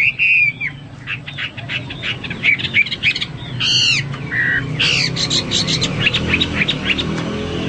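Chinese hwamei (melodious laughingthrush) singing a varied, fast song: a whistled warble at the start, then quick runs of short, sharp notes broken by a few loud sweeping whistles. A low steady hum runs underneath.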